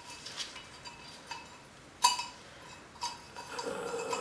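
A few light metal clicks and clinks from handling the end fitting and locking ring of a tube-style inner tie rod removal tool. The sharpest click comes about two seconds in.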